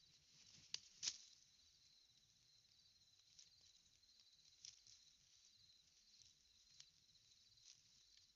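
Faint, steady chorus of insects chirping, with two sharp knocks about a second in and a few softer clicks later.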